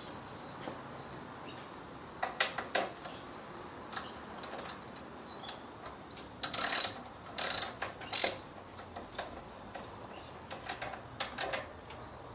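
Socket ratchet clicking in short runs as a spark plug is unscrewed from a lawn mower's four-stroke engine, with three louder runs in the middle and scattered lighter clicks of tool handling around them.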